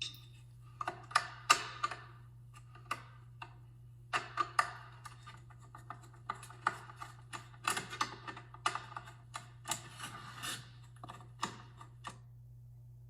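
Hand screwdriver (number 2) backing screws out of a plastic space-heater housing: irregular small clicks and short scrapes of metal on screw heads and plastic, stopping about a second before the end.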